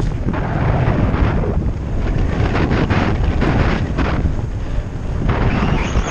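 Wind buffeting a helmet camera's microphone as a mountain bike rides fast down a dirt trail, with rumbling tyre noise and frequent knocks and rattles from bumps.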